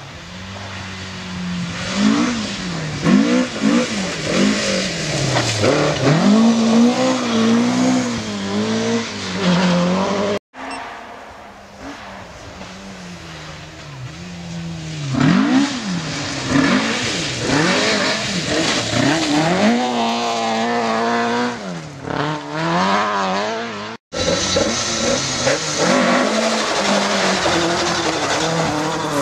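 Ford Escort rally cars driven hard, their engines revving high and falling again and again through gear changes and lifts. The sound breaks off abruptly twice as one clip cuts to the next.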